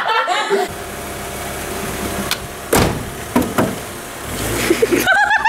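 Laughter at the start, then a car running with a steady low hum. A few short knocks come in the middle.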